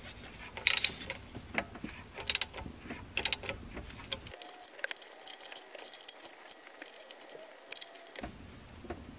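Small socket ratchet clicking in irregular runs as it tightens the 13 mm nuts on the aluminium oil filter housing cap of a Mercedes OM636 diesel, snugged gently rather than torqued hard.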